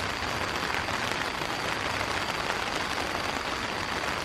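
Heavy rain drumming on the fabric of a single-wall tent, heard from inside: a dense, steady patter of drops.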